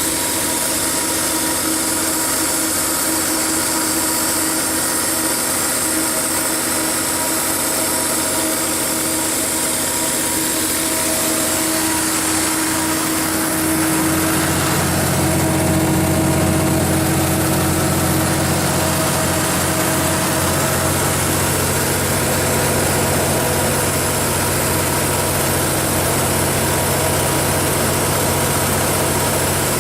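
Cummins QSB7-G5 six-cylinder diesel engine of a 200 kW generator set running steadily, with a whine and hiss over it. About 13 seconds in, a deeper hum comes in and the sound gets a little louder.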